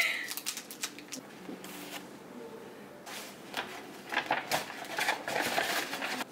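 Kraft paper shopping bag rustling and crinkling as a small boxed item is packed into it, starting about three seconds in.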